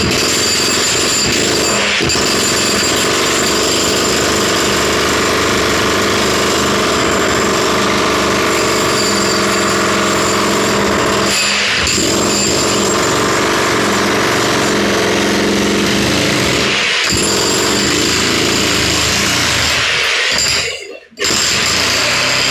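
Electric jackhammer hammering continuously while breaking holes for drainage pipes. It checks briefly a few times and stops for under a second near the end before starting again.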